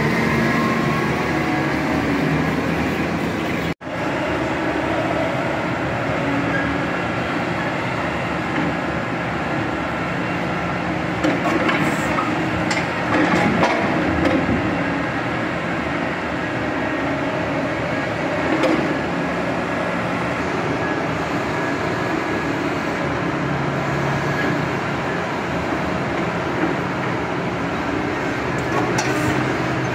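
Diesel engine and hydraulics of a material-handling excavator running steadily while it works a log grapple, with scattered knocks and clatter from the timber logs, a cluster of them near the middle and a few near the end.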